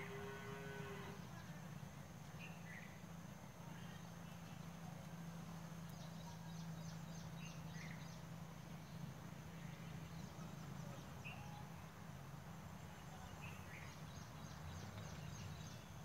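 Faint outdoor ambience with a steady low hum, scattered short bird chirps, and two brief runs of rapid high ticks, about six a second, one about six seconds in and one near the end.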